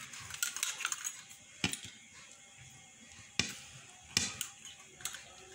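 Table knife cutting through an omelette on a plate: a scrape, then about four sharp clicks as the blade knocks against the plate.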